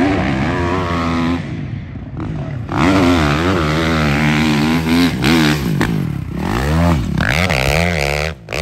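Four-stroke dirt bike engine revving hard under load as it climbs a steep sand hill, its pitch repeatedly rising and falling with throttle and gear changes, with a short quieter stretch about two seconds in.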